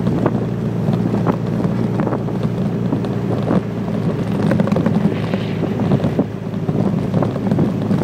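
Cabin sound of a classic sports car driving on a wet, rough road: a steady engine and road drone with wind noise, broken by irregular knocks and thumps.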